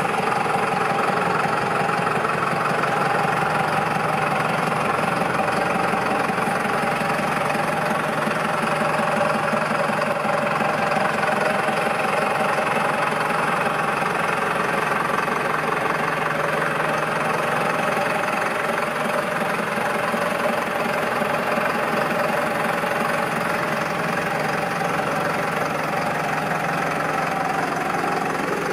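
Valtra Valmet 6400 tractor's six-cylinder turbo diesel engine idling steadily.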